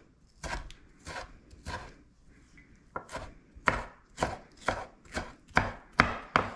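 Chef's knife dicing tomatoes on a bamboo cutting board: a steady run of sharp chopping strokes, about two a second, with a short pause about two seconds in and the strokes growing louder toward the end.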